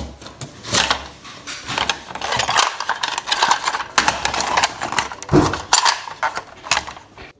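Plastic Lego pieces clicking and rattling in a quick, irregular clatter as the built set is handled.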